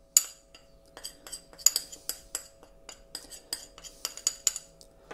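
Metal teaspoon tapping and scraping against a small china dish, knocking powdered spice out of it: an irregular run of light clinks, the sharpest one right at the start.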